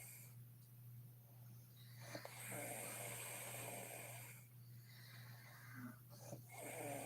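A sleeping woman snoring: one long snore about two seconds in and another beginning near the end, with quieter breathing between. A steady low hum runs underneath.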